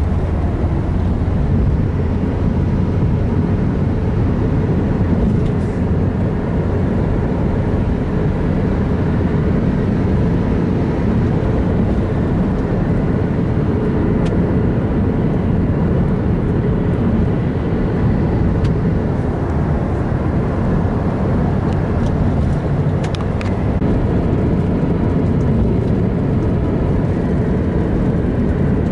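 Taxi driving on a highway, heard from inside the cabin: a steady low rumble of road and engine noise.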